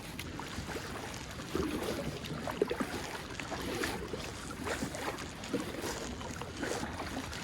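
Water splashing and trickling around a kayak as it is paddled, with irregular small splashes and knocks from the paddle.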